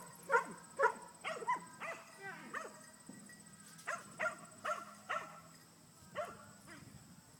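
English Setter barking in short, high yips, about two a second. There is a brief pause about three seconds in, more yips after it, and a single last one near the end.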